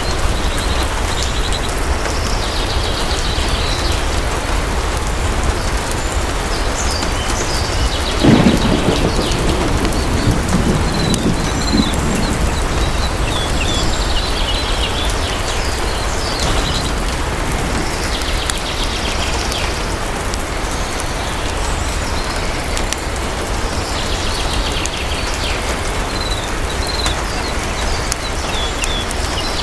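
Steady heavy rain with a roll of thunder that breaks suddenly about eight seconds in and rumbles away over a few seconds.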